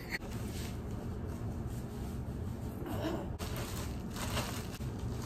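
Crinkling of a plastic packet of face masks being handled, in short irregular rustles, over a steady low hum.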